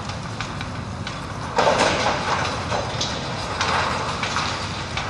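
Brick and masonry debris crashing and clattering down during wrecking-ball demolition of a brick building, starting suddenly about one and a half seconds in, with scattered sharp knocks after, over a steady low rumble.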